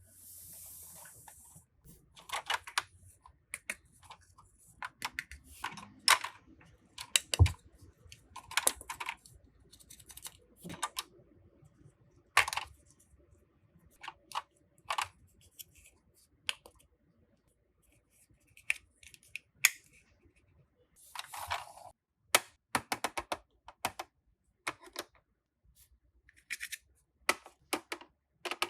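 Hands unboxing and handling a plastic toy playset: irregular clicks, taps and light knocks of plastic pieces, with crinkling and rustling of packaging, including a longer rustle about two-thirds of the way in.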